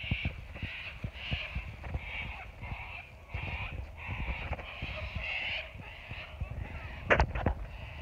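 A bird calling over and over, short calls about two a second, with low thumps of footsteps and handling noise on the microphone.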